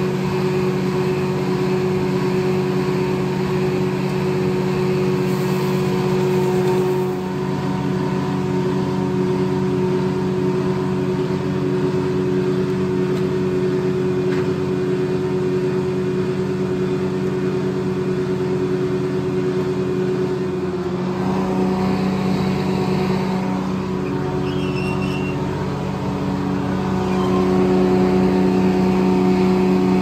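Corley circle sawmill running, a steady engine drone that changes tone about 7 seconds in and again about 21 seconds in.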